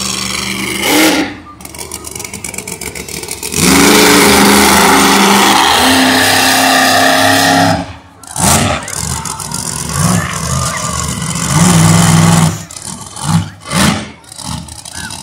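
Monster truck engines revving hard: one long full-throttle run of several seconds, then after a break a series of short, sharp throttle blips.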